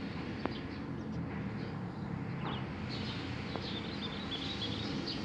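Steady low machinery hum during the unloading of Jet A-1 from a tanker truck through its bottom-valve hose, with one short click early and small birds chirping from about halfway in.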